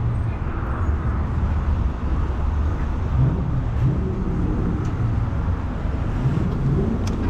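Kawasaki sport bike engine idling and ticking over at walking pace, a steady low rumble with small changes in pitch as the throttle is touched.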